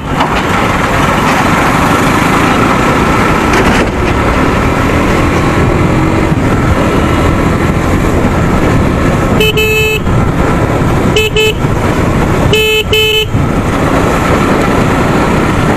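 Steady traffic and engine noise while riding a motorcycle through city traffic. From about nine seconds in, a vehicle horn honks four times: one blast, a short toot, then two quick blasts.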